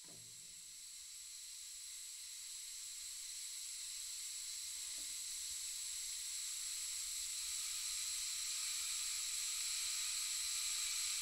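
A steady high-pitched hiss, like white noise, slowly swelling louder throughout. Faint low tones sound briefly at the start and again about five seconds in.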